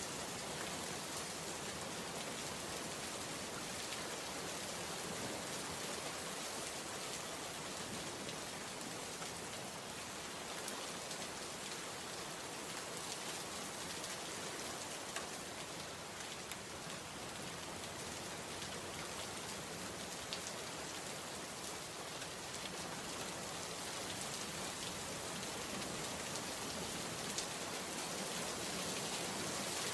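Heavy rain falling steadily on a wet road and leafy vegetation: an even hiss of rain with a few sharper drop ticks now and then.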